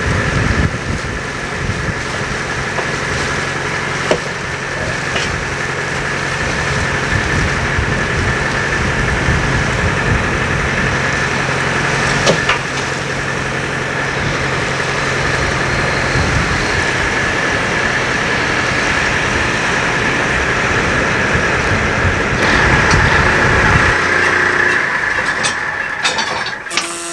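Fishing boat's engine running steadily, with a few sharp knocks over it. The low hum drops away in the second half, and the sound cuts off suddenly at the very end.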